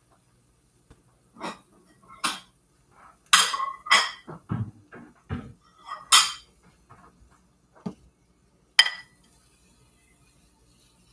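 Dishes being handled: about six sharp clinks and knocks spread over several seconds, with a few dull thumps in between, as a plate is fetched for serving.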